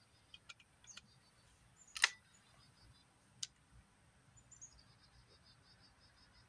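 Quiet metal clicks from loading a single-barrel shotgun: a few small clicks as a bird-shot shell goes into a 20-gauge chamber adapter, a sharper snap about two seconds in as the gun is closed, and one softer click a little over a second later.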